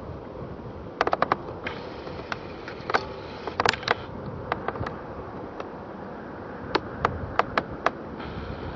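Steady low rumble, broken by a string of sharp clicks and taps that come in small clusters: a few about a second in, several around three to five seconds in, and more near seven to eight seconds in.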